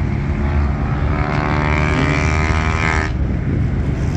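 A supercar engine rumbling, then accelerating with a slightly rising note for about two seconds. The note cuts off abruptly about three seconds in, leaving the low rumble.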